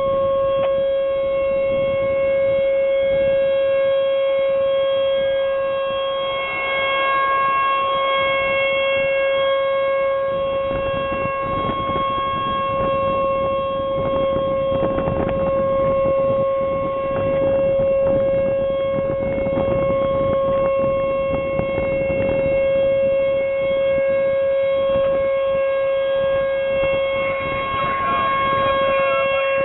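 Outdoor tornado warning siren sounding a steady, unwavering tone, its overtones fading in and out every few seconds, a rushing noise beneath it in the middle.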